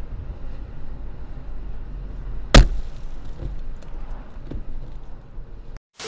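Low road and engine rumble heard from inside a moving car, with one sharp, loud bang about two and a half seconds in. A burst of TV-static noise starts at the very end.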